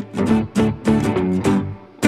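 Background music led by plucked guitar, its notes coming in a steady rhythm of about three or four a second.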